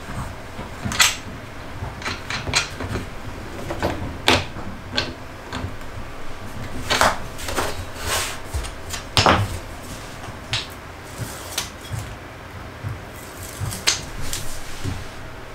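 Scattered, irregular knocks and clicks of wooden jig parts and tools being handled, shifted and set down on a wooden workbench.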